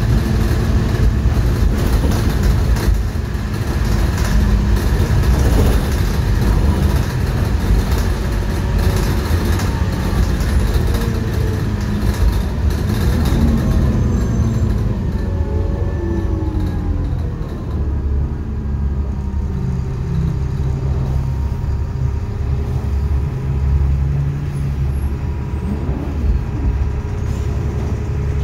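Single-decker bus's diesel engine and drivetrain heard from inside the saloon while driving, with tyre hiss from the wet road. About halfway through, the engine note falls and the hiss fades as the bus slows.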